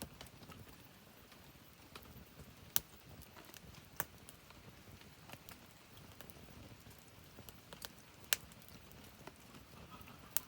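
Wood fire burning with a soft, steady crackle, broken by sharp single pops about four times.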